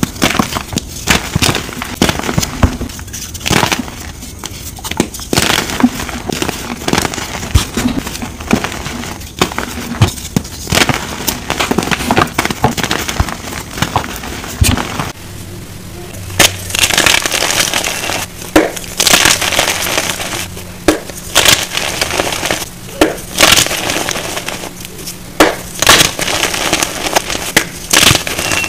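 Hands crushing and crumbling blocks of dyed reformed gym chalk in a run of irregular dry crunches and crackles. About halfway through, a faint low steady hum comes in underneath and the crunches come sharper and louder.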